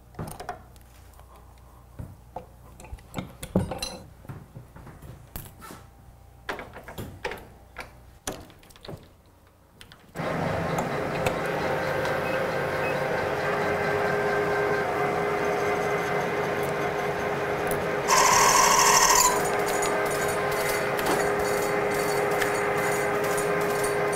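Scattered light clicks and taps of bearings being pressed into hard skateboard wheels. About ten seconds in, a metal lathe starts running steadily with a humming tone as it turns down a thicker axle rod. Near the end, a louder high-pitched screech of the cutting tool on the rod lasts about a second.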